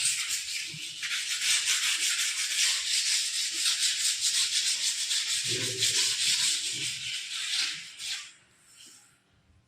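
Scrubbing a hard kitchen surface by hand in rapid back-and-forth strokes, a steady rubbing that stops about eight seconds in.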